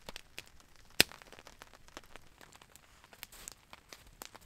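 Wood campfire crackling, with scattered small pops and one sharp, loud pop about a second in, freshly stoked with big pieces of wood.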